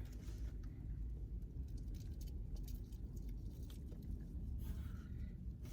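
Faint scattered clicks and crackles from a crumbly jam-filled biscuit being broken and bitten, over a low steady hum.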